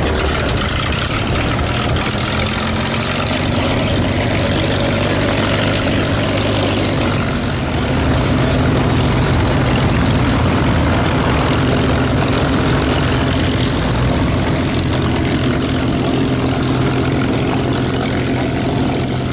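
Piston-engine propeller aircraft idling on the ground: a steady, even engine drone with propeller noise. It gets a little louder and its note shifts about eight seconds in.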